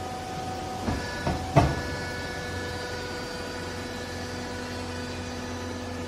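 Vertical hydraulic clothing baler running as its press plate drives down and compresses used clothes: a steady hum and whine from the hydraulic power unit. About a second in come three quick metallic clunks, the last the loudest, and the machine's whine changes pitch.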